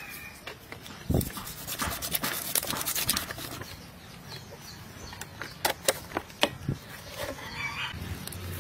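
Food-preparation handling sounds: a thump about a second in, then runs of sharp clicks and rattles as salt is spooned from a plastic jar over a large fish in a plastic basin. A hen clucks briefly near the end.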